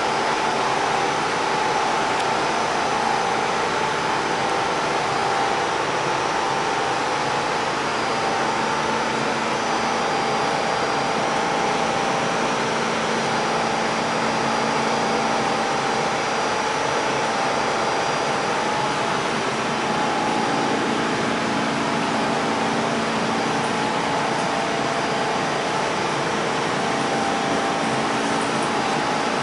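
Steady interior noise of an R46 subway car: an even rushing hiss with several steady hums that hold level, with no sudden sounds.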